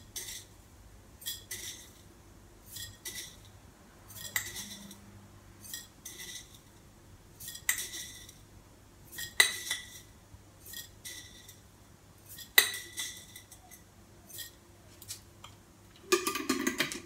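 Metal spoon clinking and tapping against a glass jar as dried goji berries are spooned in, a spoonful at a time: irregular ringing clinks about half a second to a second apart, with a short rattling burst near the end.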